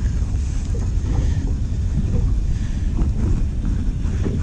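Wind buffeting the microphone, a steady low rumble, with a few faint knocks near the end.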